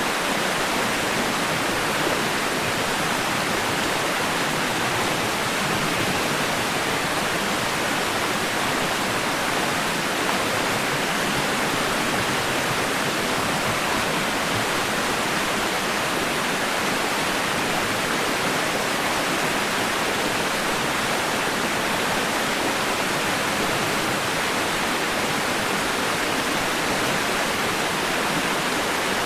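Steady white noise: an even, unchanging hiss like rushing water, played continuously as a baby-sleep sound.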